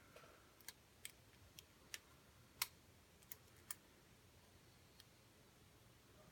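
Faint, irregular small clicks of a lock pick and tension wrench working the pin stack of a padlock, about eight over several seconds with quiet between them.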